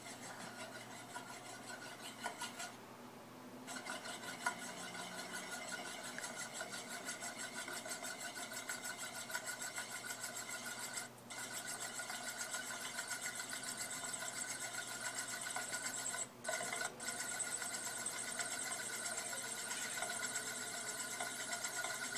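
Euler's Disk spinning and rolling on its mirror base, a fast continuous whirring rattle of the metal disk's edge against the glass.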